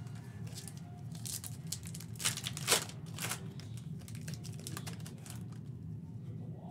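Foil wrapper of a basketball trading-card pack being torn open and crinkled, loudest about two to three seconds in, followed by lighter clicks as the cards are handled. A steady low hum runs underneath.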